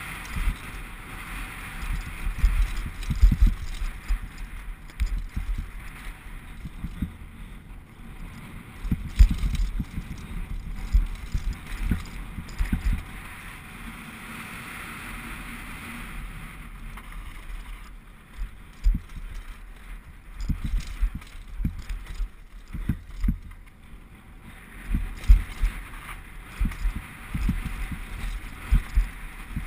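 Specialized Big Hit downhill mountain bike bumping fast over a rocky trail, heard from a helmet camera: irregular low thumps and rattles of the frame and suspension over rocks, in clusters, over a steady rush of wind.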